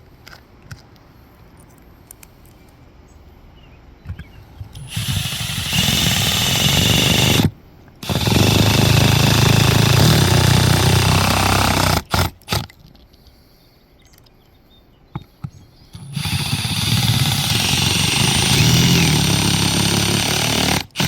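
Cordless power driver sinking 5/16-inch hex-head screws with EPDM sealing washers through solar mounting feet into the roof. It runs three times, for about three to five seconds each, with a pause of a few seconds between the second and third runs.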